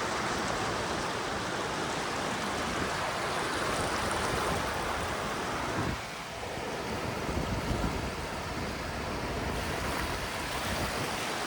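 Gulf of Mexico surf washing steadily around the microphone, easing briefly about six seconds in.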